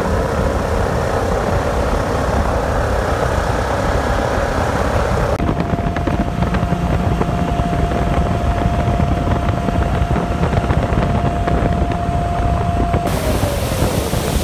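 1984 Wooldridge Classic jet boat running under way at speed: steady engine and jet-drive noise with rushing water and wind. From about five seconds in, a steady whine rides on top; it falls in pitch near the end.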